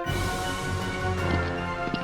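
Background music with sustained notes, opening with a sudden crash whose high wash fades over about a second.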